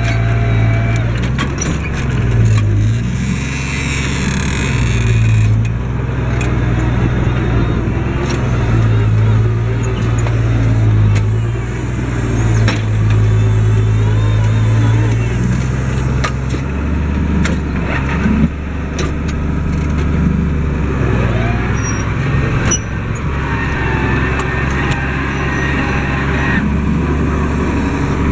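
Case IH 1056 XL tractor's six-cylinder diesel running under load while ploughing, its note dipping and recovering several times. A sharp clunk about 18 seconds in, with rattles from the cab and implements.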